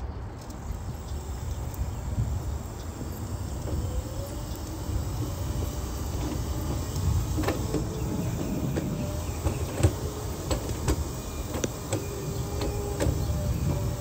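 Wheelchair rolling over a brick sidewalk: a steady low rumble with scattered clicks and rattles, which come more often in the second half.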